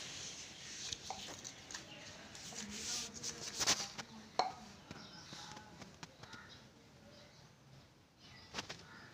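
Close handling noise from hands rustling a plastic blister pack, with a few sharp clicks about three and a half seconds in, again a little later, and near the end.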